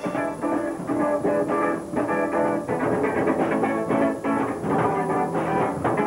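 Rock band music led by quickly picked guitar.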